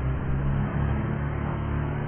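Wood chipper's engine running steadily with a low, even hum, no branch being fed through.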